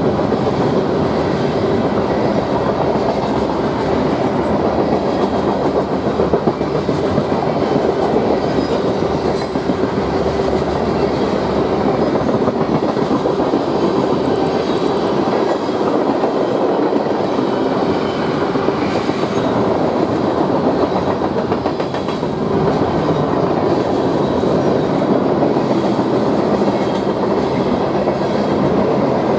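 Manifest freight train rolling past: a steady, loud rumble of the cars' wheels on the rails.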